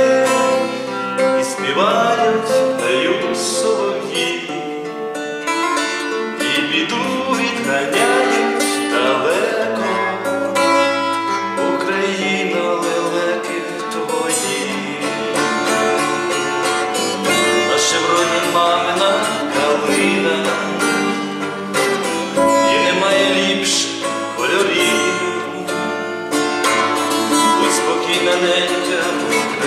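Music from a pear-shaped, lute-like plucked string instrument played with picked notes, over held accompanying tones.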